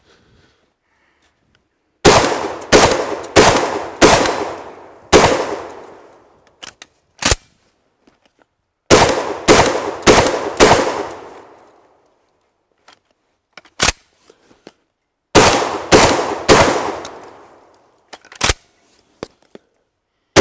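SRM 1216 semi-automatic 12-gauge shotgun firing in three quick strings of shots, about two shots a second, with pauses of a few seconds between strings. A few smaller sharp clicks fall in the pauses.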